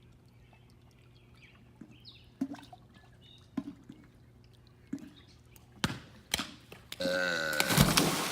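A few soft thumps and two sharp knocks, then a loud belched burp about seven seconds in, overlapped by a big water splash that dies away slowly.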